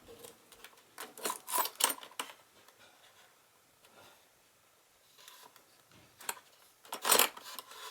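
Handling noises from a fingerprint door lock being taken apart by hand: scattered small clicks and scrapes of its parts as a piece is unscrewed. The sounds come in two clusters with a near-quiet pause between them, and the sharpest click comes near the end.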